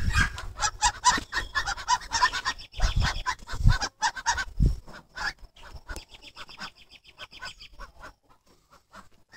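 White domestic ducks quacking in quick runs of short calls, the calls thinning out over the last few seconds. There are a couple of low thumps about three and four and a half seconds in.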